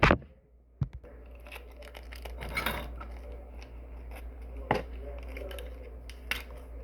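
Small plastic sauce packet being crinkled and tugged at while someone tries to tear it open, a steady rustle broken by a few sharp clicks.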